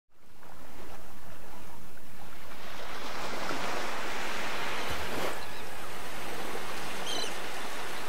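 Small waves lapping and washing up a sandy beach, fading in at the start and swelling about halfway through. A short, high chirp sounds near the end.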